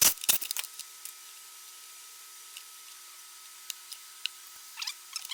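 Handling clicks and knocks of small parts being worked by hand: a few sharp clicks in the first half second, scattered single ticks, then a quick cluster of light clicks and rustles near the end, over a faint steady hum.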